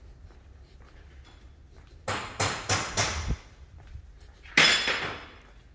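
Metal clanking in a workshop: a quick run of about five knocks about two seconds in, then one louder clank that rings briefly near the end.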